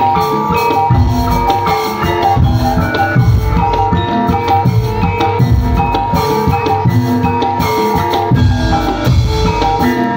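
Live jaran kepang accompaniment: gamelan-style tuned metal percussion playing a busy repeating melody of ringing notes over loud, dense drumming.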